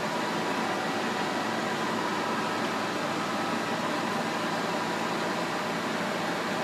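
Pinacho S-90/180 engine lathe running, a steady mechanical whir with faint steady tones and no changes in speed.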